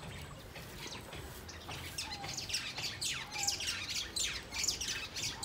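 Birds chirping: a rapid run of short, high calls that starts about two seconds in.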